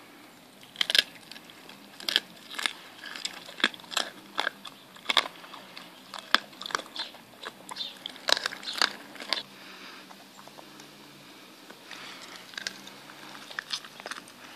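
Dog chewing raw rabbit ears, with sharp crunches about two a second that ease off about ten seconds in and pick up again near the end.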